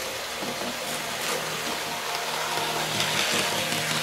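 Märklin H0 model train running on the layout: a steady rolling and motor hum that grows louder as it passes close by, about three seconds in.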